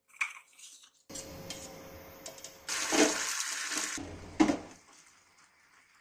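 Melted jaggery bubbling and sizzling in a nonstick pan as it is stirred with a silicone spatula. The hiss swells louder for about a second in the middle, and there is a single knock about four and a half seconds in.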